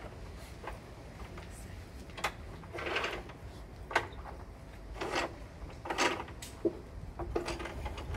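Sash cord being pulled through the pulley wheels of a traditional sash and case window: a series of short rubbing and scraping sounds, with sharp clicks about two and four seconds in.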